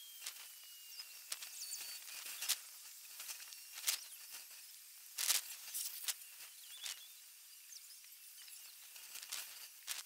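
Outdoor background hiss with many scattered short, sharp clicks and crackles, the loudest a little past the middle, and a few faint high chirps.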